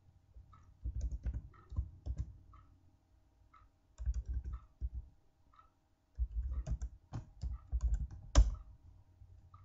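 Computer keyboard typing in three quick bursts of keystrokes with short pauses between, the last burst ending in one louder keystroke.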